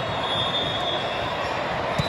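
Indoor gym noise during a volleyball match: a steady wash of crowd and court noise, with a thin high squeal lasting about a second near the start.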